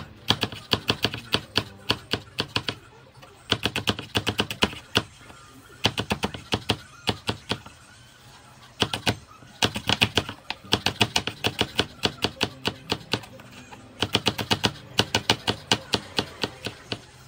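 Chef's knife rapidly chopping green chilies on a wooden cutting board: runs of quick knocks, about six to eight a second, with short pauses between runs.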